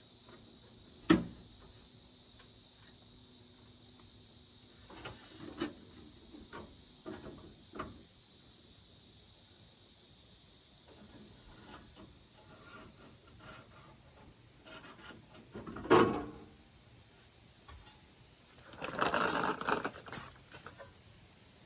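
Scattered knocks and clicks of hand tools and sheet metal being handled: two sharp knocks, about a second in and again partway through, lighter clicks in between, and a short rattling scrape near the end, over a faint steady hiss.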